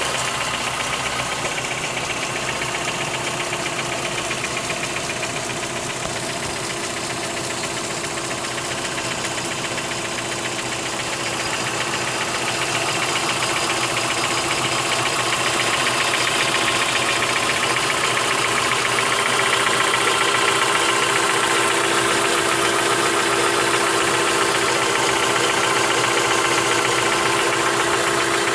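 2003 Mitsubishi Lancer engine idling with a fast, steady ticking, which the owner suspects is lifter tick. It grows slightly louder about halfway through.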